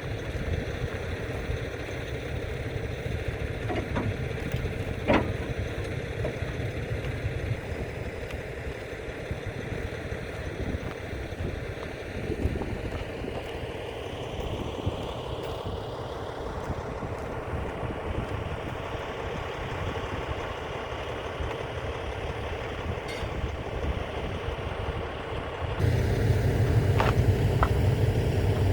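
Engine idling steadily with a constant hum and a few sharp knocks, loudest about five seconds in. About 26 seconds in the sound jumps louder and deeper.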